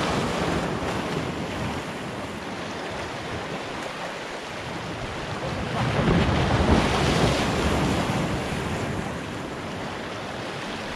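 Small waves washing over rocks at the water's edge, with wind rumbling on the microphone. The wash swells louder for a couple of seconds about six seconds in.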